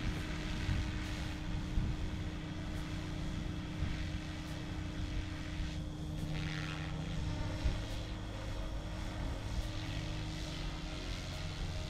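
SAB Goblin 380 electric RC helicopter in flight: a steady drone from its spinning rotor blades and motor. Its higher-pitched whine swells briefly about six seconds in.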